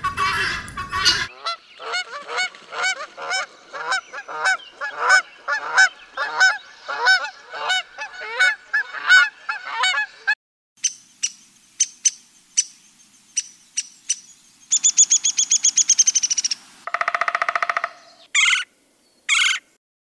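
Domestic geese honking over and over, about two calls a second. About halfway through they give way to other bird calls: scattered short ticks, then a fast high trill and a buzzy call near the end.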